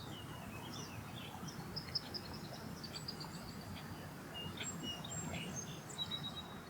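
Birds chirping, a string of short high chirps and a few brief held whistles, over a steady low background rumble.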